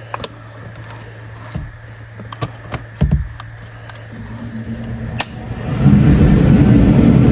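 Small clicks and knocks of interior trim pieces being handled, then about six seconds in a Dodge Charger Hellcat's supercharged V8 starts and runs loudly.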